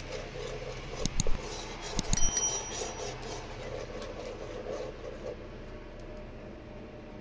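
Kitchen utensils knocking and clinking against cookware: a couple of knocks about a second in, then a quick cluster of clinks about two seconds in, one with a short bright metallic ring, over a steady low background noise.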